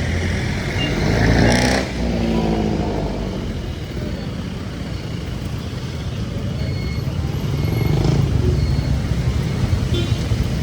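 Motor vehicle engine in street traffic, rising in pitch and loudest about one and a half seconds in, then a steady engine drone.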